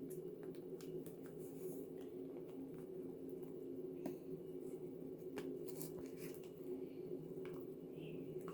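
Faint squishing and small scattered clicks of slime with fishbowl beads being handled and mixed, over a steady low hum.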